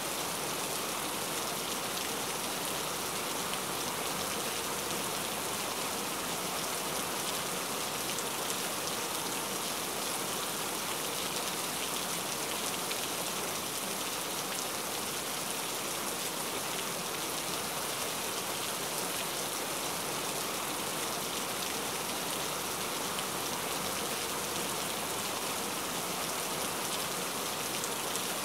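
Steady rain: an even hiss of falling rain with no breaks or changes.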